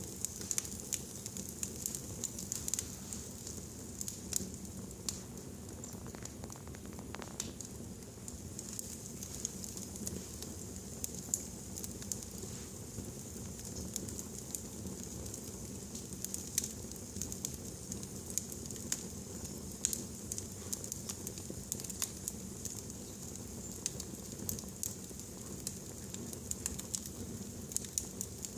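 Wood fire burning in a fireplace, with a steady low hiss and frequent irregular sharp crackles and pops.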